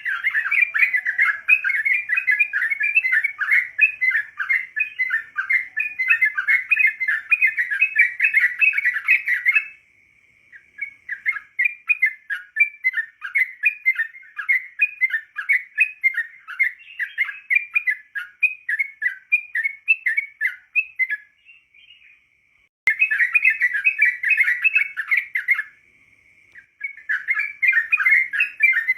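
Yellow-vented bulbul (trucukan) singing: a dense run of quick chattering chirps and warbled notes, breaking off abruptly a few times before resuming.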